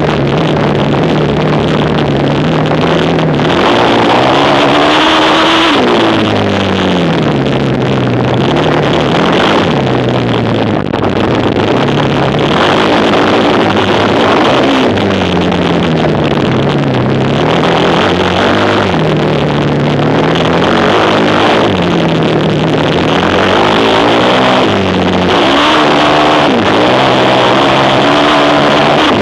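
Racing quad bike's engine revving up and dropping back again and again as it accelerates and slows. One engine note rises and falls every few seconds and stays loud throughout.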